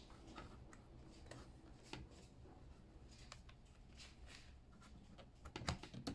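Faint clicks and scraping of a USB memory stick being pulled from a computer's port and plugged back in, with a louder cluster of clicks near the end.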